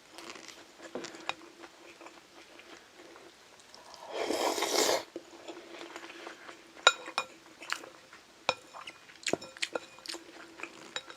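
Eating at a table: quiet chewing and utensils clicking against dishes, with a loud noisy burst lasting about a second around four seconds in. In the second half, several sharp ringing clinks of utensils on bowls. A faint steady hum runs underneath.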